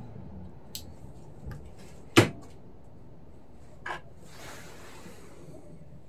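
Hard knocks and clicks of parts or tools being handled during lawn mower disassembly: a small click, then one loud sharp knock about two seconds in, another knock near four seconds, and a short rustle or scrape after it.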